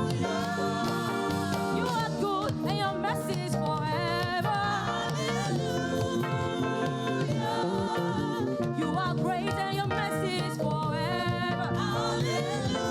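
Live gospel praise music from a church choir and band: steady instrumental accompaniment under singing with wavering, ornamented vocal lines.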